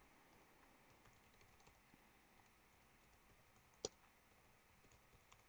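Faint typing on a computer keyboard, with one sharper click a little before four seconds in.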